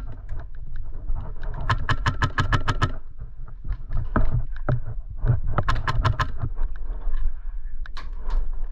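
Airsoft guns firing rapid strings of shots, two strings of roughly a second each with scattered single shots between them, as an opposing push is met.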